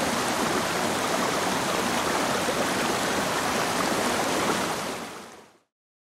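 Small waterfall on a rocky stream: a steady rush of water pouring over the rocks, fading out near the end.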